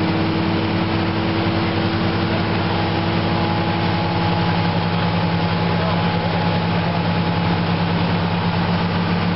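Fire apparatus engines running steadily at the fireground, a loud continuous low drone whose pitch shifts slightly about halfway through.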